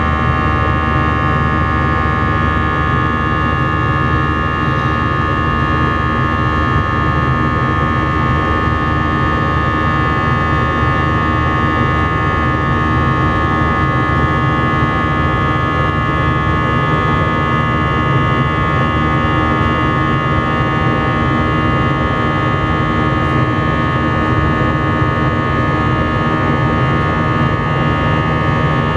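Airbus A319 jet engines heard inside the cabin: a steady loud rumble with several steady whining tones on top, holding constant throughout.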